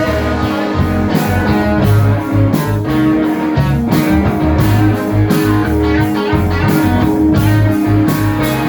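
Live rock band playing an instrumental passage, led by guitar over bass and drums.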